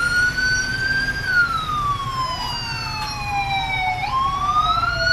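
Electronic police siren wailing: a tone that climbs, then slides slowly down over about three seconds and jumps back up about four seconds in. A second siren tone overlaps it from about halfway.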